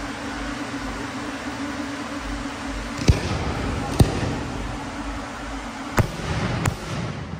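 Steady hum of a swarm of light-show drones hovering overhead, which fades about six seconds in. Four sharp pops cut through it, about three, four, six and nearly seven seconds in.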